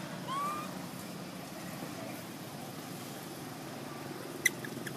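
A baby macaque gives one short, rising squeak about half a second in, over a steady low hum. A sharp click sounds near the end.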